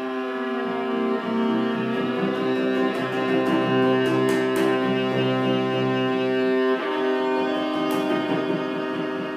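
Bowed string instruments playing long held notes together, with the notes changing about seven seconds in.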